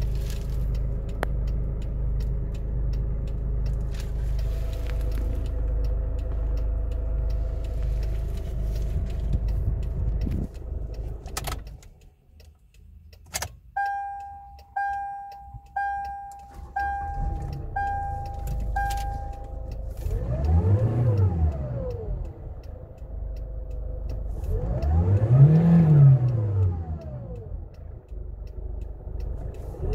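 Hyundai Accent engine idling steadily, then shut off about ten seconds in, with a couple of key clicks. With the ignition switched on, the dashboard warning chime beeps six times, about once a second. The engine then runs again and is revved in short blips, its pitch rising and falling, the last one near the end.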